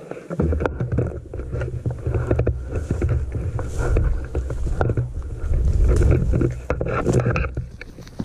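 Low rumbling wind buffeting and handling noise on a gun-mounted action camera's microphone, with rustling and small knocks as the shotgun is swung about. It starts about half a second in and eases off near the end.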